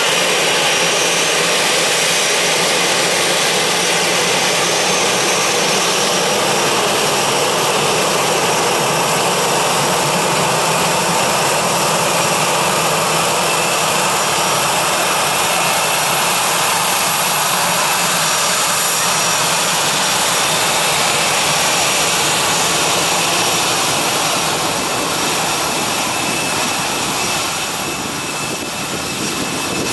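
Airbus A320 jet engines running at taxi power: a loud, steady rushing with a thin high whine on top. It eases a little near the end as the airliner moves away.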